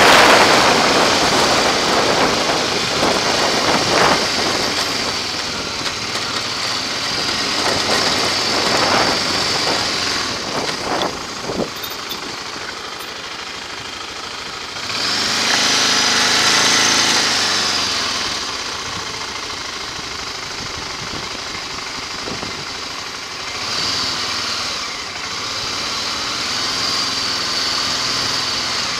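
A vehicle's engine running at low speed through town, with wind rushing over the microphone, loudest in the first seconds. A louder rushing swell rises about fifteen seconds in and fades again about three seconds later.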